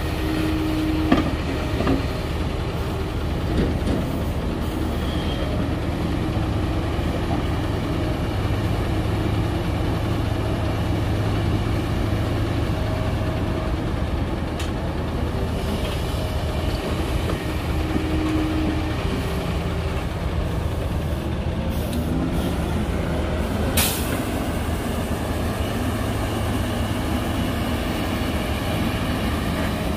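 Heavy diesel engines of a Kobelco SK380XD excavator and a dump truck running steadily while the excavator loads sand into the truck. A short whine near the start and again about 18 seconds in, and one sharp click about 24 seconds in.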